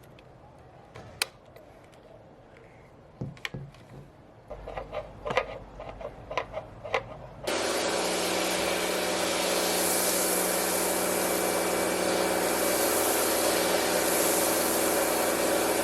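A few clicks and knocks of fittings being handled. About halfway in, a Karcher K3 electric pressure washer starts up suddenly and runs with a steady motor hum under the loud hiss of the spray. It cuts off right at the end.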